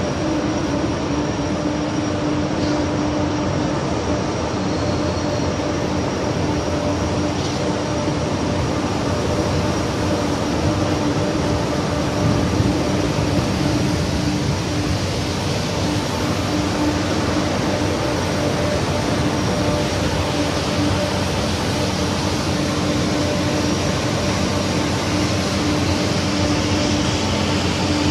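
Steady machinery noise with a constant hum, unchanging throughout.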